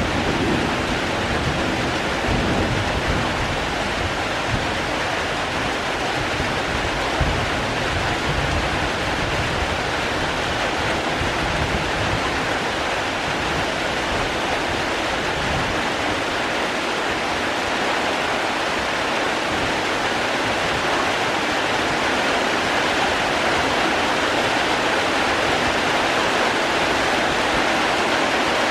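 Steady heavy rain, an even hiss of water. A low rumble of thunder dies away over the first few seconds.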